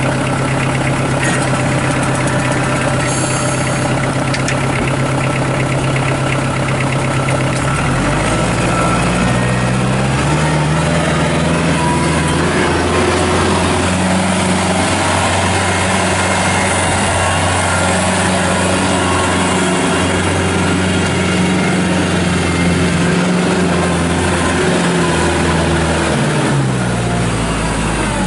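2009 Kubota L4740 compact tractor's four-cylinder diesel engine idling steadily. About eight seconds in, its note changes as the tractor moves off, and the engine speed then rises and falls as it drives.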